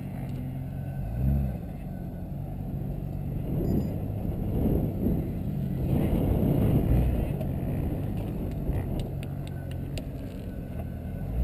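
Jeep Cherokee engine working as the Jeep crawls over rocks, revving up and down in short surges, with a longer, louder stretch of throttle in the middle. A few light clicks near the end.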